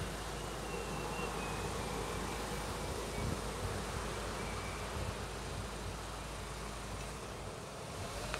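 Steady rushing noise of road traffic, with a car driving past on the road beside the level crossing.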